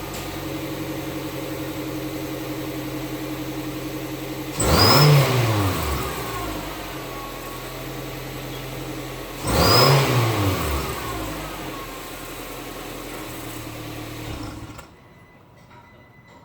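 Car engine idling and revved twice, about five seconds apart; with each rev a cheap exhaust-mounted turbo whistle gives a high whistle that rises and falls with the engine. The engine sound drops away sharply near the end.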